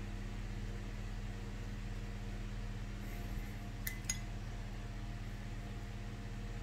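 A paintbrush clinks twice against a glass, quickly, about four seconds in, over a steady low hum.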